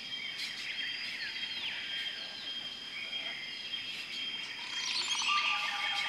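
Mixed birdsong: several birds chirping and calling over a steady high-pitched tone, with a busier run of quick chirps near the end.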